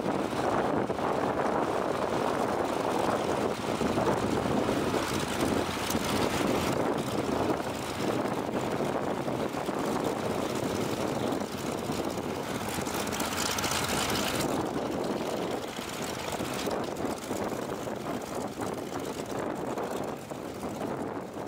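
Vought F4U Corsair's Pratt & Whitney R-2800 radial engine running at low taxi power, its propeller turning, as the fighter rolls past; the engine noise is loudest in the first half and eases off toward the end.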